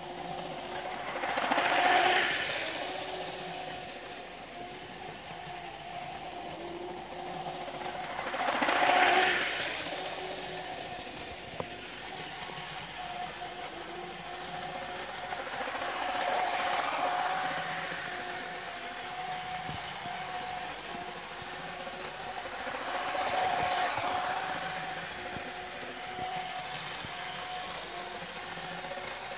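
Hornby OO gauge Pacer twin railbus model running laps on its track: a steady electric motor whine with rumble from the wheels, swelling four times, about every seven seconds, as it passes close by, the first two swells the loudest.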